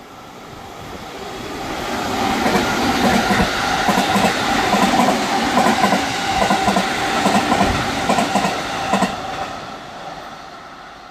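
JR West Biwako Line local electric train going by, its sound swelling up for several seconds and then fading away, with wheels clattering over rail joints in a quick run of knocks while it is loudest.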